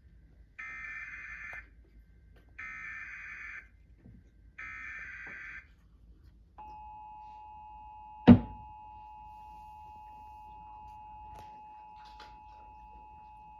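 Emergency Alert System tornado warning on TV: three one-second bursts of the buzzy SAME digital header, each followed by a pause, then the steady two-tone EAS attention signal starting about halfway through. A single loud thump comes about two seconds after the tone begins.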